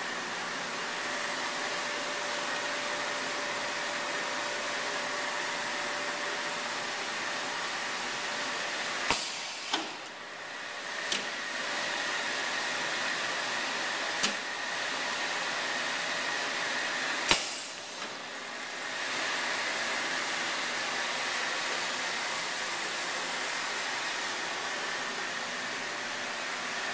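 A 10 kW A&G radio-frequency bar welder running with a steady airy hiss. About five sharp clicks come between nine and eighteen seconds in, and the hiss dips briefly after two of them.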